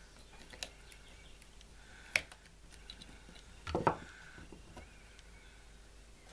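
A few faint clicks as a Stanley knife blade prises a tiny speaker out of a Nokia 6230i's plastic front case. The sharpest click comes about two seconds in, and a short soft knock follows a little before four seconds.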